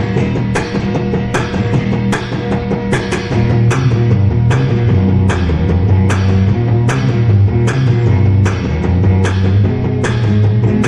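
Psychobilly-style rock band recording: electric guitar and bass over drums hitting a steady, even beat.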